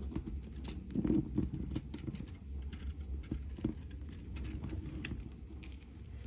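Scattered light clicks and rubbing from fingers pinching and bending a bundle of silver-plated copper wires around a stone.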